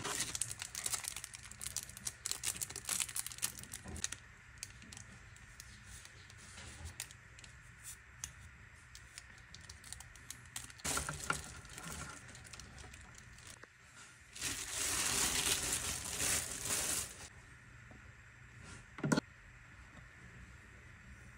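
Clear plastic packaging bags crinkling and rustling as grinder parts are unwrapped, in spells: a dense crackle over the first few seconds, a short burst midway, and a longer rustle a few seconds before the end. A single sharp knock near the end.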